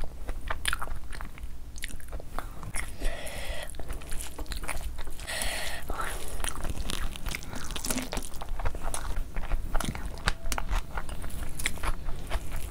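Close-miked eating sounds: chewing with many small wet mouth clicks, together with the sound of a hand mixing rice pulao into curry gravy on a plastic sheet.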